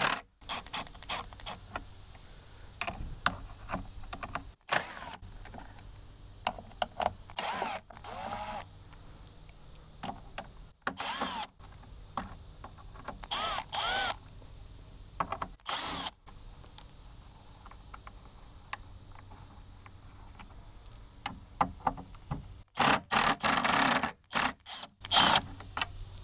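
Cordless drill/driver running in several short bursts, backing out T25 Torx screws; its pitch rises and falls with each pull of the trigger, with a quick run of bursts near the end. A steady high insect drone runs underneath.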